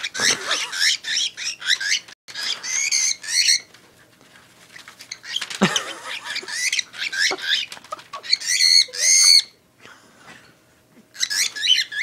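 Cockatiel giving harsh squawking calls in four bursts, with rustling and a sharp thump about halfway through as it tussles with the newspaper on its cage floor. It is agitated because the curled paper won't fold.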